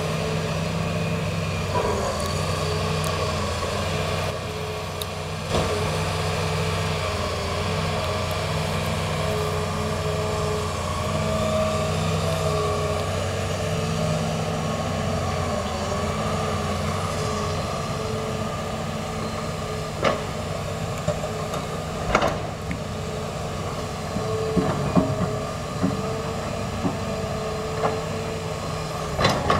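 Hitachi Zaxis 350 excavator's diesel engine and hydraulics working as it loads coal into a dump truck, the engine note rising and falling with each swing. Several sharp knocks and clanks come in the second half as loads land in the truck's steel bed.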